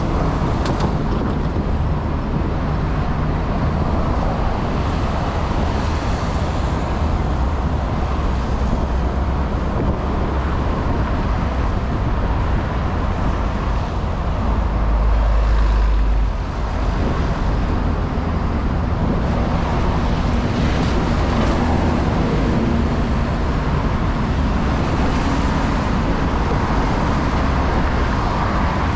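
Steady motor traffic on a busy city road, with a louder low rumble for a second or two about halfway through.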